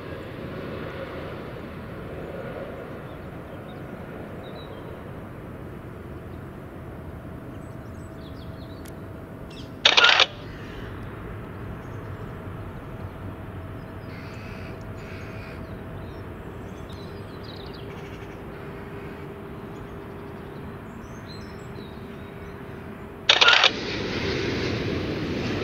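Steady outdoor background noise with a low rumble and a faint steady hum, broken about ten seconds in and again near the end by a brief loud burst of noise where one clip cuts to the next. After the second burst the background is louder.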